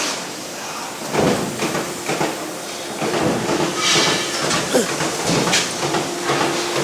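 Metal stamping and punching presses working steel parts: irregular clanks and knocks, with a short hiss about four seconds in.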